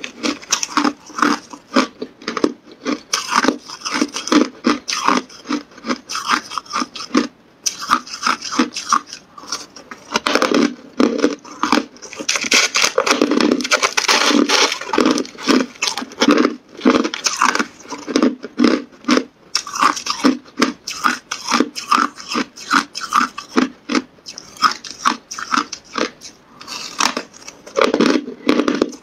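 Hard clear ice being bitten and chewed, a rapid run of sharp crunches close to the microphone, with a brief pause about seven and a half seconds in.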